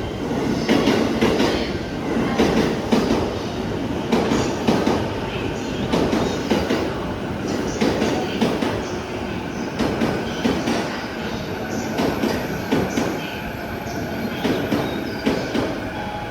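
JR East E231 series electric train running, heard from aboard: a steady rumble with wheels knocking over rail joints every second or so, and a thin high tone joining in about halfway through.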